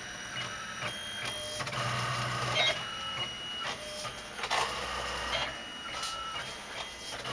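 A desktop 3D printer's stepper motors running, a steady whine that jumps between pitches every second or so as the moves change, with a few short clicks.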